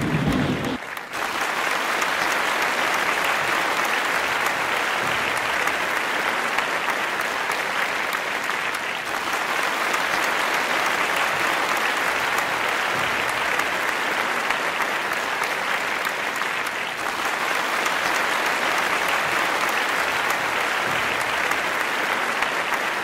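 Large audience applauding: dense, steady clapping throughout, after a low-pitched sound stops within the first second.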